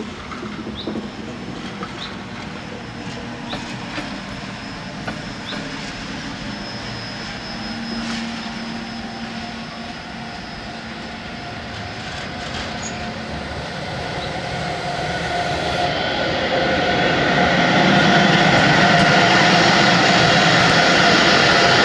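Electric locomotives running on the line, with light clicks and brief wheel squeals at first; from about two-thirds in, a DB Class 101 electric locomotive approaches and grows loud, its running noise carrying several steady tones.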